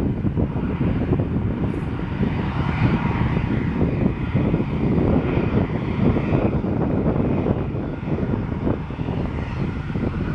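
Airbus A321 jet engines running at taxi power, heard from outside the airport: a steady, deep rumble with a fainter whine above it.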